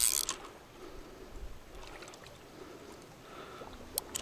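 Water sloshing and lapping at a river's edge, with a short noisy burst right at the start and a sharp click near the end.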